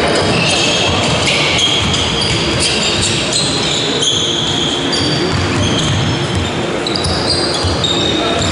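Basketball game on a sports hall's wooden court: the ball bouncing on the floor as it is dribbled, with many short, high squeaks throughout.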